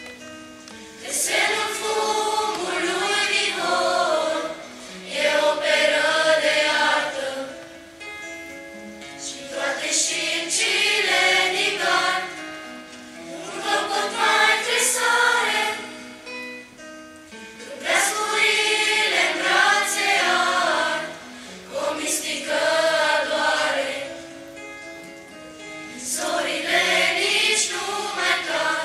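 Choir of children and teenagers singing a Romanian Christmas carol (colind), in phrases a few seconds long with quieter gaps between them.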